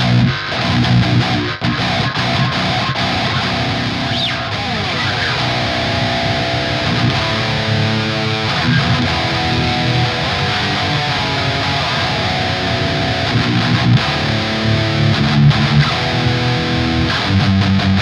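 Eight-string electric guitar with a Chinese-made Invander humbucker in the bridge (treble) position, played through distortion in heavy metal riffs.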